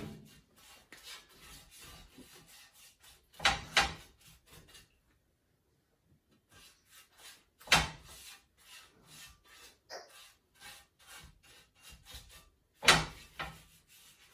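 Oil being dabbed and rubbed over a grill pan: soft, repeated rubbing and scraping, broken by three louder clunks from the pan being handled, about a third of the way in, halfway and near the end.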